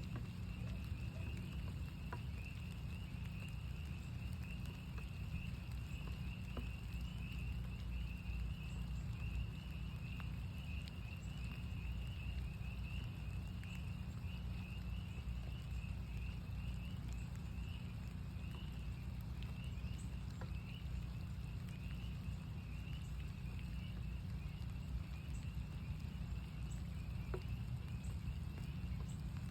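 A chorus of northern spring peepers calling without pause, many high peeps overlapping into one wavering, continuous trill. Steady rain noise sits underneath, with a few sharp drip ticks now and then.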